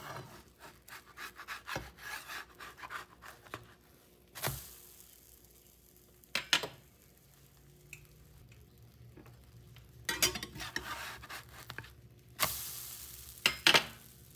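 Pancake batter cooking in a hot nonstick pan without oil, a faint sizzle, broken by several short scrapes and knocks of a metal spatula against the pan as pancakes are turned.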